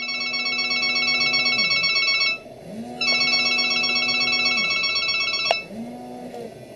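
A phone ringing with a high electronic warbling ringtone over a low buzz: two rings of about two seconds each with a short gap between them. Near the end a sharp click is followed by a fainter buzz.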